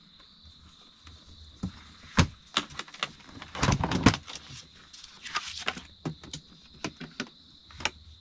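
Metal clacks and knocks of a folding aluminium-framed camp table being unfolded and its panels and bamboo top set in place, loudest about two seconds in and again around four seconds, with lighter taps after.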